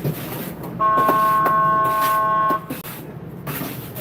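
A car horn sounding one long blast of nearly two seconds, a steady chord of several notes over traffic noise.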